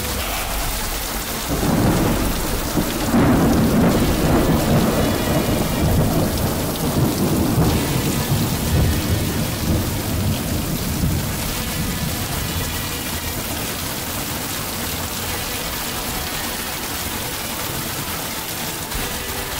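Steady rain falling, with a long roll of thunder that builds about a second and a half in, is loudest a couple of seconds later and rumbles on for several seconds before fading back into the rain.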